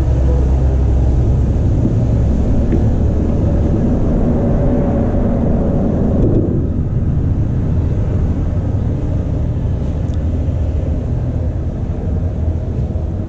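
Steady low rumble of traffic crossing the concrete road bridge overhead, swelling a little around the middle.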